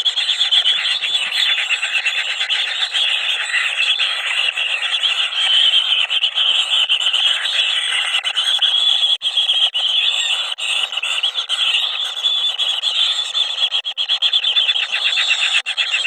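A brood of kingfisher nestlings begging for food together: an unbroken, high-pitched chorus of fast, buzzy calls.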